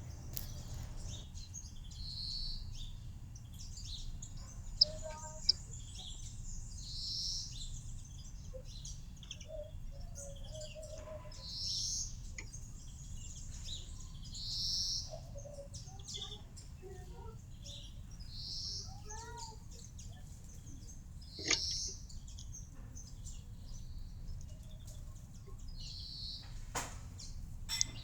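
Small garden songbirds calling, one short high call note repeated every few seconds among faint lower chirps, over a steady low background rumble. A few sharp clicks stand out, two close together about five seconds in, one past the middle and one near the end.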